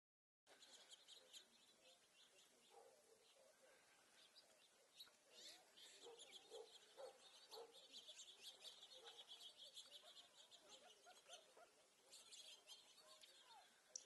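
Faint chirping and twittering of a flock of small seed-eating birds, house finches among them, with many short high chirps that thicken into a steady twitter in the middle and again near the end.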